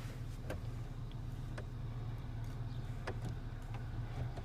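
Steady low drone of a pickup truck's engine and road noise heard from inside the cab while driving, with a few faint scattered clicks.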